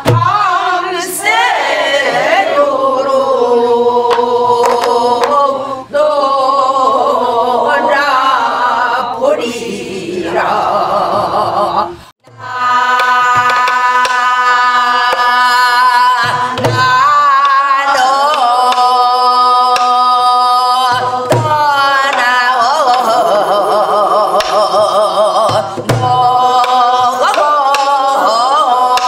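A woman sings gugeum, a wordless Korean vocal melody with wide vibrato, to the gutgeori rhythm. She beats it out on a buk barrel drum with a stick, its low strokes falling every few seconds. The singing breaks off briefly about twelve seconds in, then resumes.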